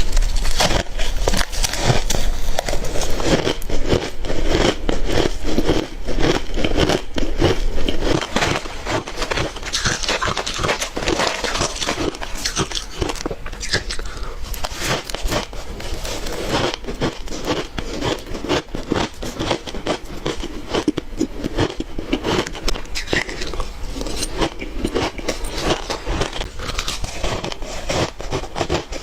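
Close-miked chewing and crunching of ice: a dense, continuous run of sharp cracks and crackles, louder for the first few seconds and a little softer toward the end.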